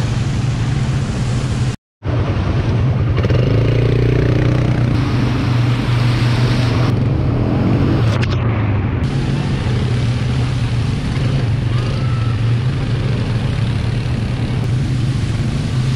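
A motor vehicle's engine running steadily with road and wind noise. The sound cuts out completely for a moment about two seconds in.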